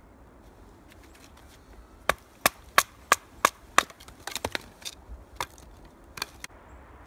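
Wooden baton striking the spine of a JaktKit KNV2 fixed-blade knife to split a stick (batoning): six sharp knocks, about three a second, starting about two seconds in, followed by a few lighter, irregular knocks and clicks.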